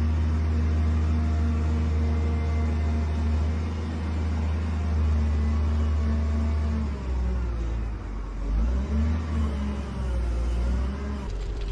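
Heavy log loader's diesel engine running at a steady pitch, then its revs rising and falling from about seven seconds in as it works.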